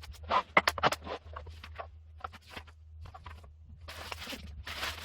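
Handling sounds of unboxing a power drill: packaging rustling and scraping, with a string of sharp clicks and taps, louder near the start and again near the end, over a steady low hum.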